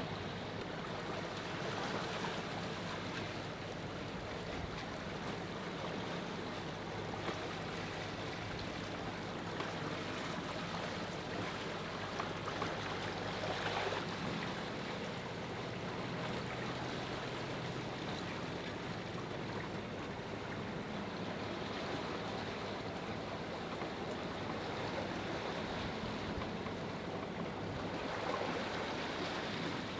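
Sea water rushing steadily along a moving sailboat's hull, with a steady low hum underneath.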